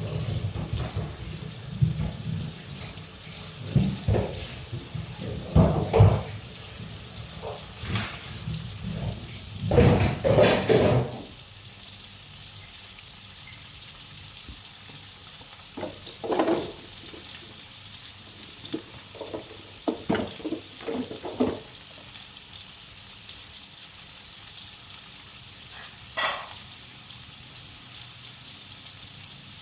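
Chicken wings frying in hot oil in a wok with garlic and shallots, a steady sizzle broken by irregular knocks and clatters of a utensil against the wok, busier during the first ten seconds or so.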